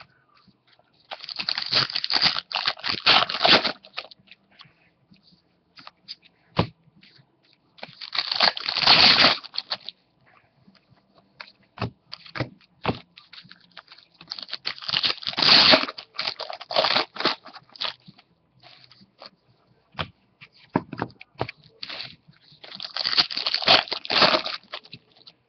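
Trading card pack wrappers being torn open and crinkled, in four bursts of a few seconds each, with small clicks and taps of handling between.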